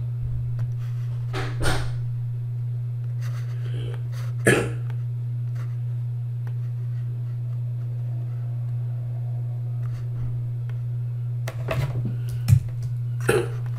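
A steady low hum, with a few brief clicks or knocks scattered through, the loudest about four and a half seconds in and a small cluster near the end.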